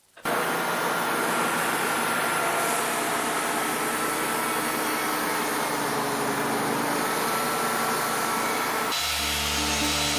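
Band sawmill running and cutting through a log: a loud, steady machine noise with a thin whine riding on it, starting suddenly. About a second before the end it switches abruptly to a deeper, steadier sound with a strong low hum.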